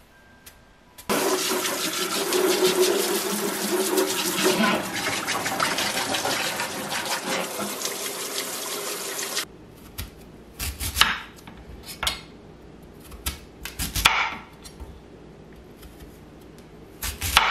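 Tap water running hard into a stainless steel sink over peeled sweet potatoes being rinsed by hand; it cuts off suddenly about nine seconds in. Then a chef's knife slices through a raw sweet potato onto a cutting board, with a few sharp knocks a second or so apart.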